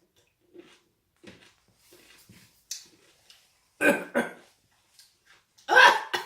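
A woman's short, throaty vocal outbursts while eating sour pickles: a loud pair about four seconds in and another near the end, with faint mouth and handling sounds between them.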